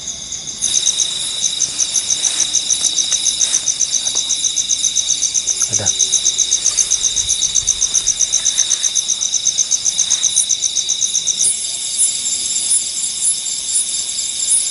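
Night insects, crickets or katydids, calling in a chorus: a fast, even, high-pitched chirping of about seven pulses a second over a steady high whine, the pattern shifting higher and sparser about three-quarters of the way through. A single soft knock sounds about halfway through.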